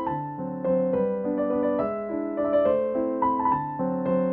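Background piano music: a gentle melody of held notes changing every half second or so.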